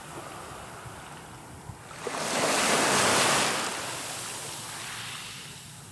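Small waves breaking and washing up the beach, with some wind on the microphone; the wash swells loudest about two seconds in and then slowly fades.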